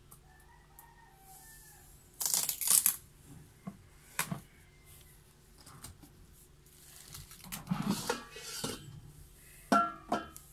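Protective plastic film being peeled and torn off a new air fryer's body, crinkling in bursts about two seconds in and again around eight seconds, with a sharp knock near the end.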